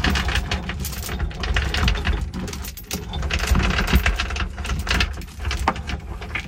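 Steel anchor chain clinking and rattling link against link, an irregular, dense clatter as it is fed down into a chain locker and flaked back and forth into a pile by hand.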